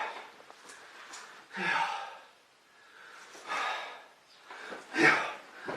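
Husky snoring in its sleep, one rasping snore about every one and a half to two seconds.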